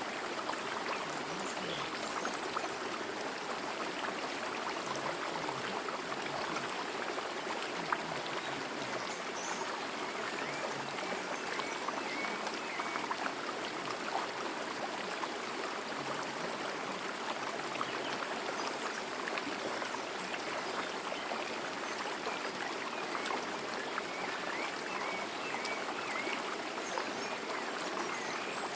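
Forest stream running over stones: a steady, even rush of water, with a few faint high chirps now and then.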